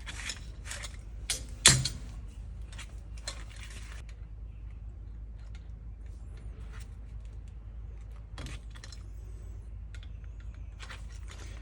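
Small metal clicks and clinks of a Delco-Remy starter's parts being worked by hand as its tabs are bent up, with the sharpest click about two seconds in and only occasional light clicks after that. A steady low hum runs underneath.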